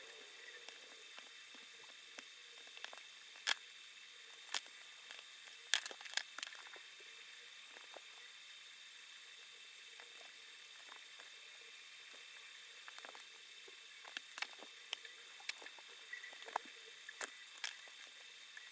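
Irregular light clicks and taps from small clock parts and tools being handled during work on a wind-up alarm clock, scattered unevenly, with a few sharper clicks and a cluster of them near the end, over a faint steady hiss.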